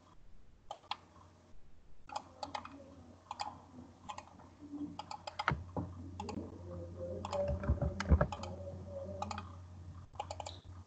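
Computer keyboard typing and mouse clicks: a new file is created through the right-click menu and named. The clicks come irregularly, over a low hum that grows louder about halfway through.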